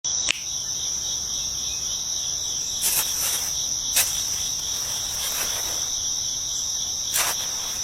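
Steady, high-pitched chorus of insects, with a few short knocks scattered through it.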